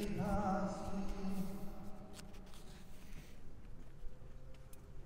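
Liturgical chant sung in held, stepping notes that fade out about two seconds in, followed by a quieter stretch with a few faint clicks.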